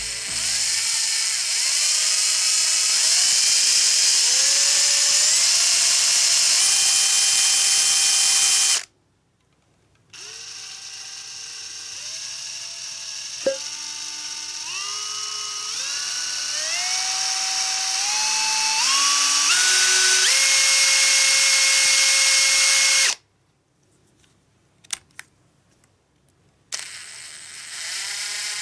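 A Makita 18V cordless drill motor runs with its trigger squeezed in stages, so the whine climbs in pitch step by step. It does this twice, with a pause between runs broken by a few clicks. A third run starts near the end.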